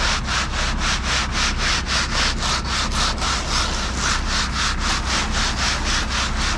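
Concrete mixer truck running while discharging concrete down its chute: a steady low engine hum under an evenly repeating scraping noise, about four to five pulses a second.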